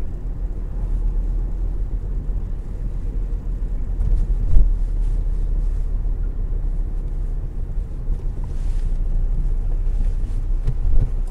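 Car cabin noise while driving slowly: a steady low rumble of engine and tyres heard from inside the car, with a single thump about halfway through.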